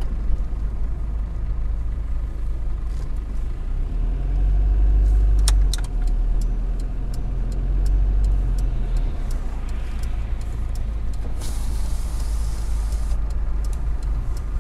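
Steady low engine and road rumble inside a moving vehicle's cab, swelling for a few seconds in the middle, with scattered light clicks and rattles and a short hiss near the end.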